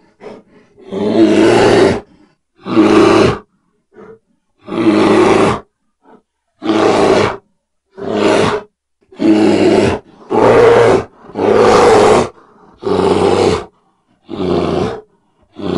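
Bear roaring in a string of about a dozen short, loud roars. Each roar lasts under a second, with brief silent gaps between them.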